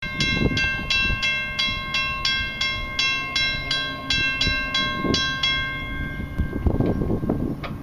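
Railroad crossing bell ringing, about three strikes a second, each strike leaving a lingering tone, while the crossing gates lower. The ringing stops about six seconds in, once the gate arms are down, leaving a low rumbling noise.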